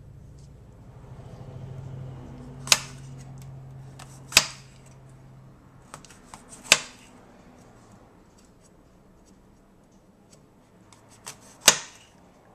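Knife chopping vegetables on a polished stone cutting board: four sharp knocks of the blade on the stone, a couple of seconds apart, with fainter taps between. A low steady hum runs under the first half.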